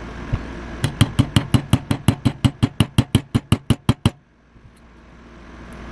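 A rapid, even run of about twenty light hammer taps, roughly six a second, driving a pistol sight into its dovetail; the taps stop suddenly about four seconds in.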